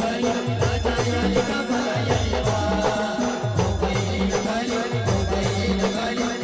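Adivasi band playing timli dance music: a keyboard melody over a steady beat, with falling-pitch bass drum hits about twice a second.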